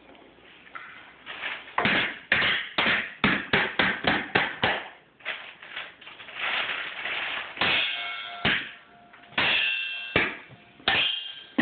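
A toddler drumming with a wooden spoon and a stick on a red bowl and stainless steel mixing bowls: a quick run of sharp knocks, then a few harder hits that leave the steel bowls ringing.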